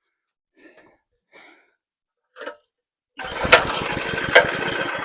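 Predator 223cc pressure washer engine pull-started, catching suddenly about three seconds in and then running steadily, with two sharp clicks soon after it catches. Before that, a few faint short noises.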